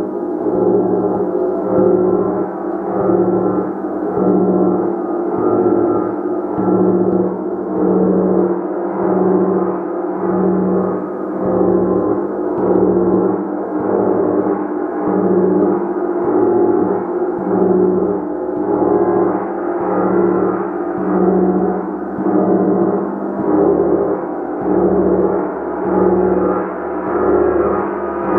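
A gong played continuously, its many overlapping tones ringing in a dense, sustained wash. The sound swells and fades in a steady pulse, roughly once every second and a quarter, as it is kept sounding by repeated soft strokes.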